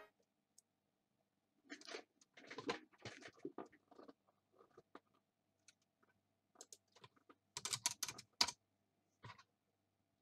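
Faint, irregular clicks and rustles, loosest in the first half and bunched more thickly about eight seconds in, over a faint steady hum.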